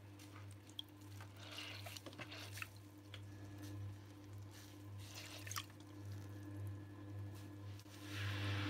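Wet clay and a wet sponge squelching and dripping on a spinning electric potter's wheel as the potter works the bowl, over the wheel's steady low hum. A louder hiss sets in near the end.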